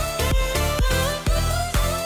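Background music with a steady beat, a heavy bass line and a gliding melody.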